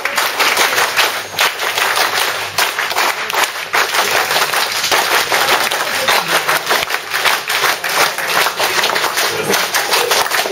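Audience applause: a roomful of seated diners clapping their hands, loud and sustained.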